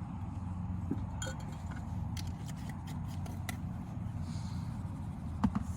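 Light clicks and clinks of cups and coffee things being handled, a few scattered ones with a sharper knock near the end, over a steady low rumble.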